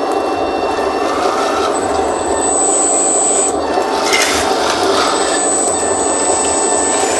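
Electric drive motors and hydraulic pump of a 1:14 scale RC hydraulic skid steer loader running: a steady mechanical whirr with a thin high motor whine that cuts in and out.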